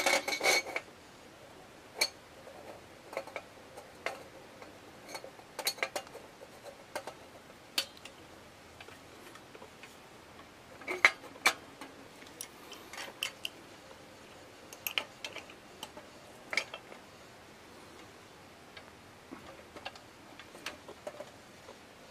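Scattered metallic clicks and taps of a wrench and a homemade tool on the brass pump cylinder of an Optimus 1200M kerosene lantern, as the pump's check valve is worked loose. The clicks come thickest in the first second and again about eleven seconds in.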